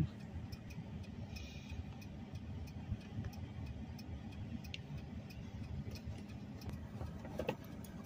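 Low, steady rumble of a car engine idling, heard from inside the cabin, with a few faint clicks.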